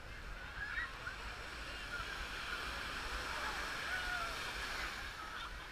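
Small waves washing onto the shore with the scattered distant voices and shouts of a crowded beach.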